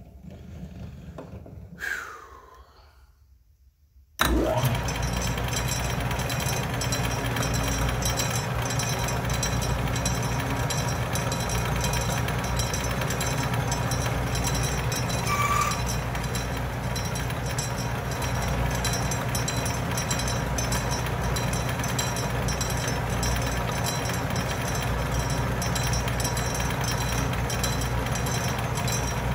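Atlas metal lathe switched on about four seconds in, its motor and drive coming up to speed and then running steadily with a low hum as the chuck spins the hex block. A brief squeak is heard about halfway through.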